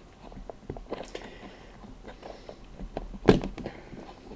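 Small clicks and scrapes of wire connectors being worked onto the tight terminals of a joystick's push-button switches, with one sharp click about three seconds in.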